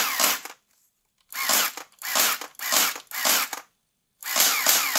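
Battery-powered P90-style gel ball blaster cycling on full auto in bursts: a motor-driven gearbox whirring with rapid clacking. There are four short bursts and then a longer one, each cut off by a brief silence, showing off its rate of fire.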